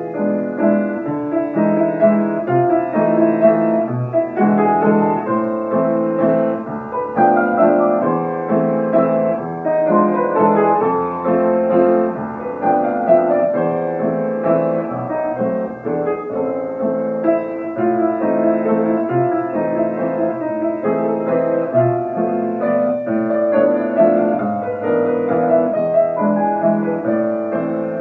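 Upright piano played solo: a classical piece with a continuous flow of notes over recurring low bass notes.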